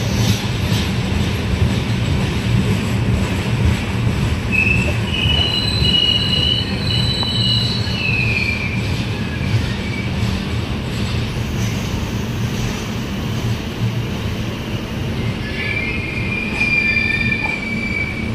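Pushpak Express passenger train running with a steady rumble, its wheels squealing on the rails in thin high tones about four seconds in and again near the end.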